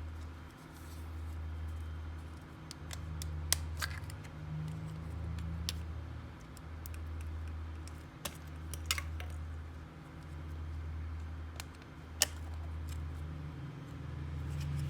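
Slime being mixed and kneaded by hand, with scattered sharp sticky clicks and pops, over a low hum that breaks off briefly about once a second.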